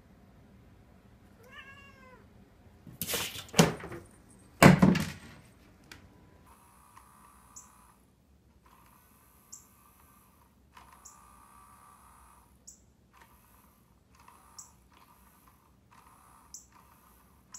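A cat gives a short chirp, then two loud meows. After that a small electronic cat toy's motor whirs in short runs that stop and start again every second or two.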